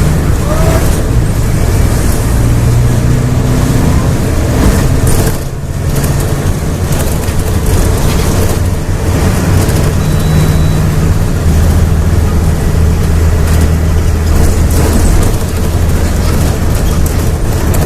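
Volksbus/MAN 17-230 OD bus diesel engine pulling hard at high revs, its pitch shifting as it accelerates. The sound drops briefly about five and a half seconds in, then picks up and runs on under load.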